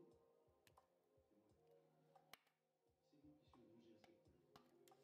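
Very faint background music, with a few sharp clicks over it, the loudest a little over two seconds in.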